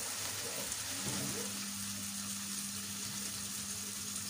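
Beef and tomato sauce sizzling steadily in a stainless steel frying pan on a gas stove, over a low steady hum.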